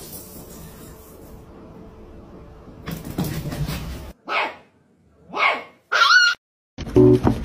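A small dog giving three short, high yips about a second apart, after a few seconds of faint room noise; guitar music starts near the end.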